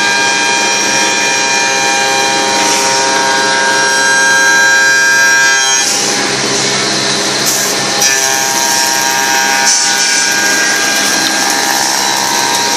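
Automatic wood copy shaper milling machine running and cutting wood, its cutters giving a loud, steady whine of many tones. About six seconds in, the set of tones changes.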